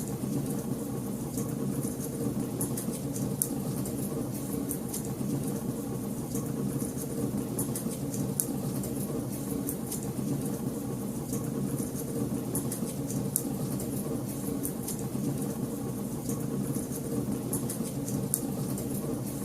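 Wood fire burning in a fireplace: a steady low roar with frequent small, sharp crackles and pops at irregular intervals.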